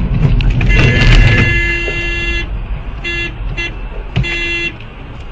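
Car horn honking in traffic: one long blast of about a second, two quick short toots, then another half-second blast, over loud engine and road rumble in a moving car, with a louder rush of noise just before the first blast.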